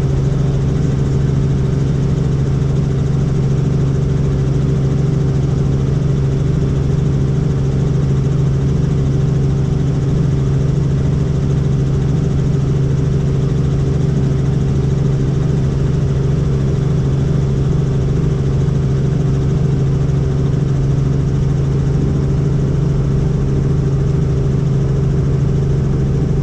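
Helicopter in flight: the steady drone of its engine and rotors, with a strong low hum and higher tones held level throughout.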